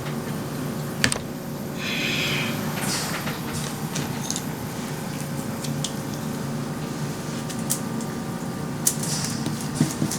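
Light taps and a brief brushing swish from acrylic painting with a brush, over a steady low hum. The swish comes about two seconds in, and a few more taps near the end.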